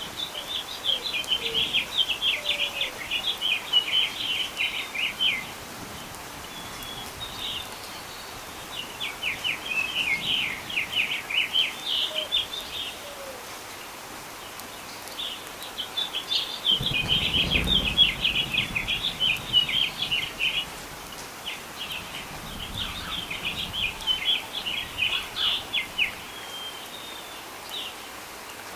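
A bird singing in phrases of rapid chirping notes, each phrase lasting a few seconds, with short pauses between them. A brief low rumble sounds past the middle.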